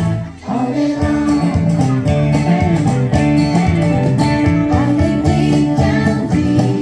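Upbeat background music with guitar and a steady beat, dipping briefly about half a second in before carrying on.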